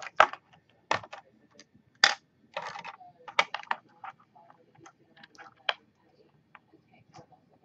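Small plastic makeup containers and tools being handled on a desk: irregular clicks, taps and clatter, with a couple of sharper knocks near the start and about two seconds in.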